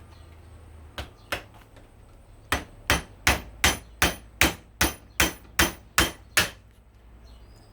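Hammer driving a chisel to split open an aluminum hose end fitting held in a vise: two taps, then a quick run of eleven blows about three a second, each with a short metallic ring.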